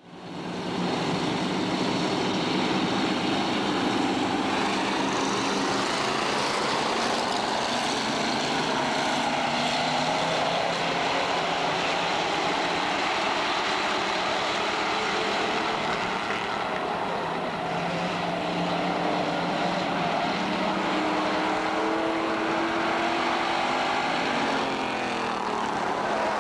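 A pack of street stock race cars running at racing speed, their engines loud and steady, with engine pitch rising and falling as cars pass. The sound fades in over the first second.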